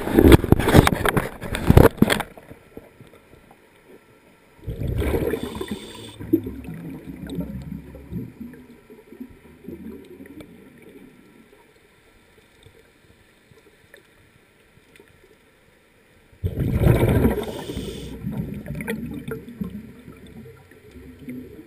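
Scuba regulator exhalations underwater: three rushing bursts of bubbles, at the start, about five seconds in and again about sixteen seconds in, each trailing off into gurgling as the bubbles rise away.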